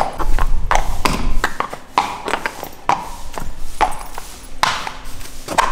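Hooves of a sedated pony being led, uneven clip-clopping steps, about two a second.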